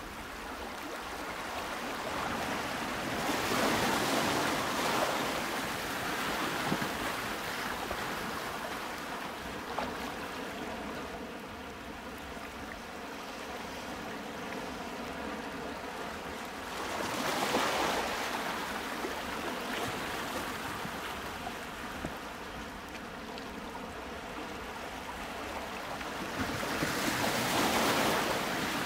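Ocean waves washing in with a steady surf hiss, swelling louder three times about ten seconds apart as each wave rolls in.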